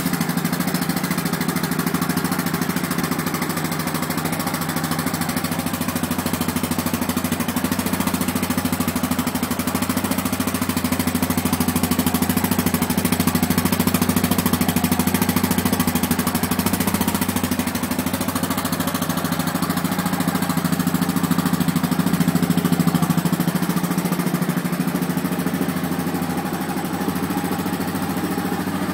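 Stock exhaust of a 2009 Yamaha Grizzly 700 ATV's single-cylinder engine idling steadily.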